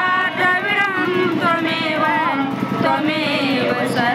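A song with a sung melody over instrumental accompaniment, continuing without a break.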